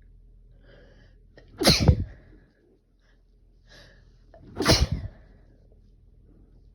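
A person sneezing twice, about three seconds apart. Each loud sneeze follows a short, faint in-breath.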